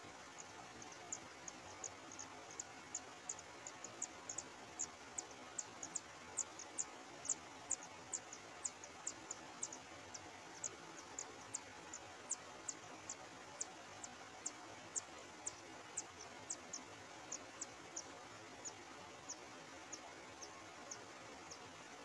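Nestlings begging in the nest with a steady run of thin, very high peeps, about two to three a second, loudest around the middle and fading toward the end.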